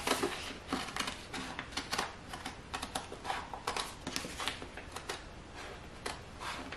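Scissors snipping through a sheet of plastic sole-protector film (a shoe shield), cutting it out along a traced outline: irregular short snips, about two a second.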